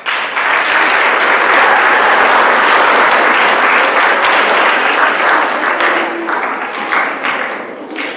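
Audience applauding, starting suddenly and thinning toward the end into scattered individual claps.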